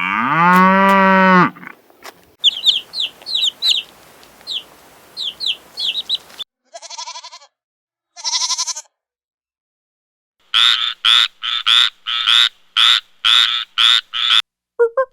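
A string of different animal calls in turn. It opens with a long, low cow-like moo in the first second and a half. High chirps follow, then two short calls, and near the end a run of about a dozen rapid, evenly spaced calls.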